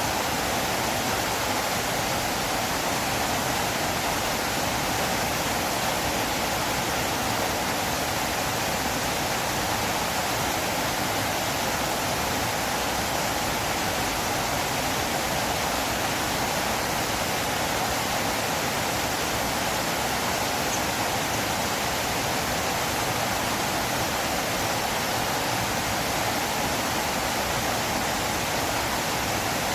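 River water flowing: a steady, even rush that holds the same level throughout, with no splashes or other events.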